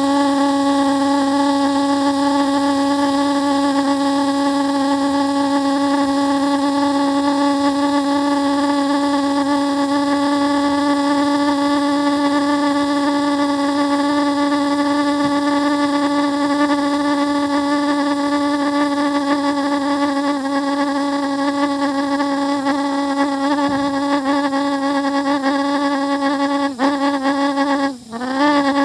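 Home-built pulse jet buzzing at a steady pitch while compressed air is blown through its intake. It is firing but not self-sustaining: it runs only on the forced air. Near the end it falters briefly, its pitch sagging, then picks back up.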